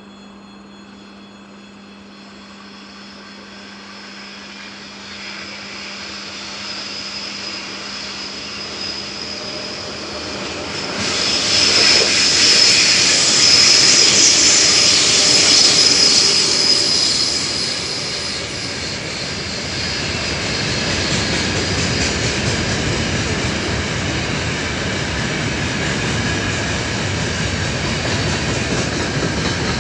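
A 3ES5K Ermak three-section electric locomotive with a freight train approaches and passes close by. The noise swells over the first ten seconds and peaks about 12 to 17 seconds in with a loud high whine and hiss as the locomotive goes past. It then settles into the steady rolling rumble of the freight wagons.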